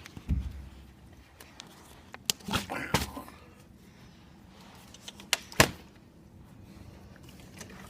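A plastic water bottle being knocked about by a cat: a dull thud at the start, a cluster of taps and a short scuffle about two and a half seconds in, and two sharp clicks a little after five seconds.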